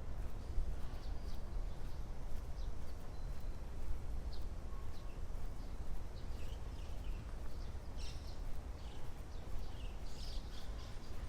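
Birds chirping, with scattered short high calls, some falling in pitch, over a steady low rumble.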